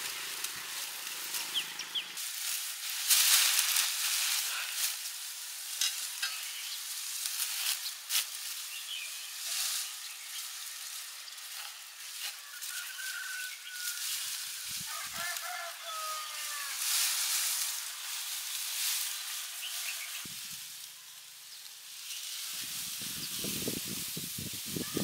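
A steady sizzling hiss with several louder rushes and scattered clicks, and a few short high chirps about halfway through.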